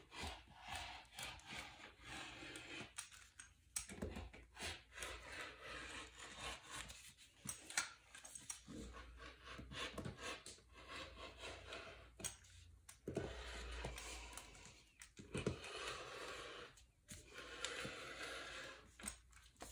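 Rotary cutter rolling through a double layer of stretch fabric along the edges of paper pattern pieces: faint, irregular rasping cutting strokes with short pauses between them.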